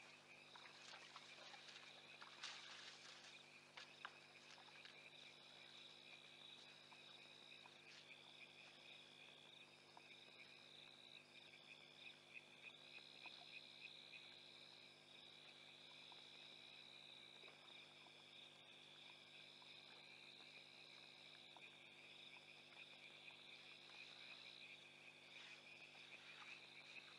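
Faint insect chorus: a steady high trill with a higher pulsing chirp that comes and goes, over a faint steady low hum.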